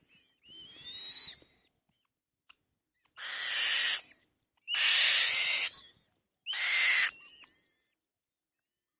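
Nestling birds of prey at the nest giving harsh, hissing begging screeches, four calls of about a second each, the middle two the loudest.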